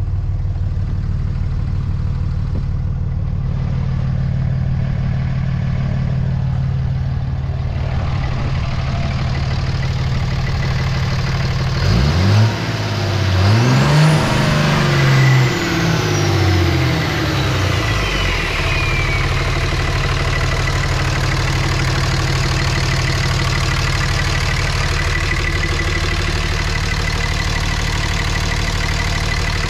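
A 2006 Dodge Ram 3500's Cummins turbodiesel idling. About halfway through it is revved several times in quick blips, and the turbocharger whistle climbs high and falls away again. After that it settles back to idle with a steady turbo whine.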